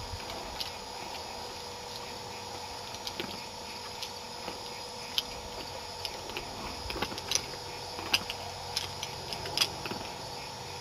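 A ridden horse approaching through tall grass: scattered clicks and knocks from its hooves and tack, louder and more frequent in the second half, over a steady faint hum.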